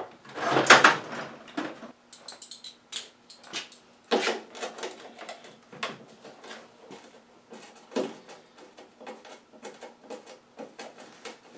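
Clicks, knocks and rattles of the drive-belt cover on a self-propelled push mower being worked loose and taken off by hand. The loudest is a scraping rattle about half a second in, with sharper knocks about four and eight seconds in.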